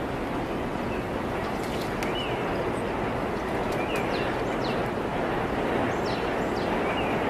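Steady rushing water in a sea otters' pool, with a few faint short high chirps and light clicks scattered through it.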